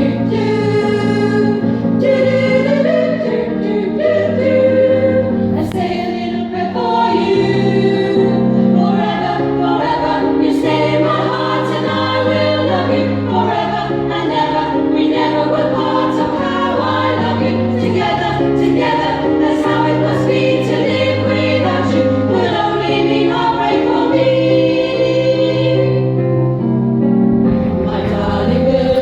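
Women's choir singing a song together over an accompaniment with a low bass line.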